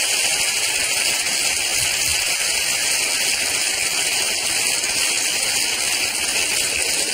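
A steady, even rushing noise, strongest in the upper range, with no pitch or rhythm to it.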